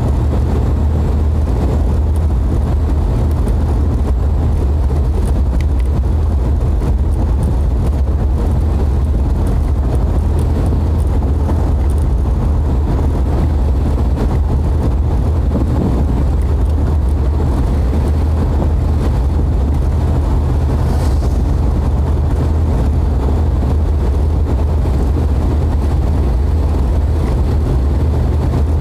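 Steady in-cabin road and engine noise of a Jeep driving at an even pace, mostly a deep rumble that holds unchanged throughout.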